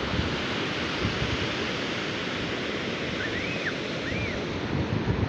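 Sea surf breaking and washing ashore, a steady noisy rush, on a sea the speaker calls frightening. Two short high calls, each rising then falling, come about three and a half and four seconds in.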